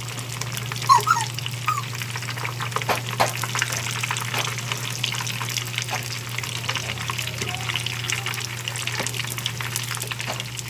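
Chicken pieces frying in oil, a steady sizzle with constant small crackles, over a steady low hum. A brief high squeak about a second in.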